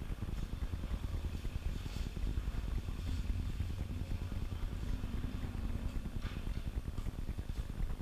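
Steady low rumble of background noise, with faint distant voices about five to six seconds in.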